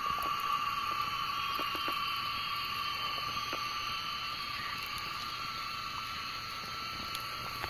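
Steady evening chorus of insects, a continuous high, even drone with a few faint ticks.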